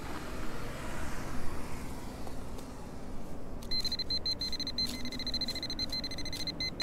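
A handheld metal-detecting pinpointer sounds its steady, high, buzzing alert tone, broken by rapid short interruptions, from about halfway through: it is indicating metal. Before it there is a low rumble of distant traffic.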